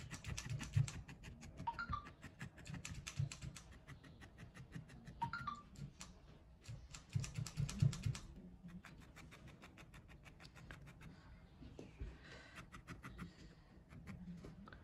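Felting needle stabbing rapidly and repeatedly into wool felt, a quick run of light ticks, several a second. The ticking thins out and grows fainter about eight seconds in.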